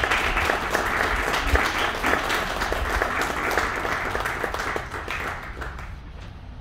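Audience applauding after a performance, a dense patter of clapping that thins out and fades over the last second or so.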